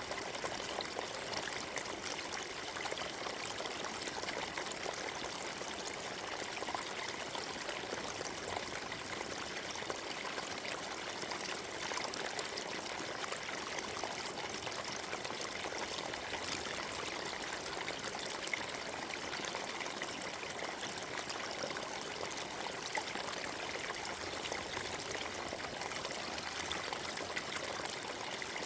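Small forest stream running over stones: a steady babble and trickle of water.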